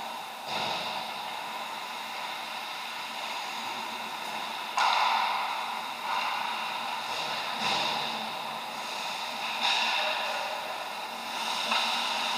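Ice hockey skate blades scraping the ice: about six sudden hissing scrapes, each fading over roughly a second, over a steady rink hum.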